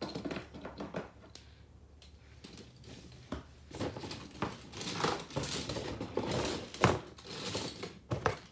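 Die-cast toy monster trucks clattering and knocking against each other as a hand rummages through a pile of them, with one sharper knock about seven seconds in.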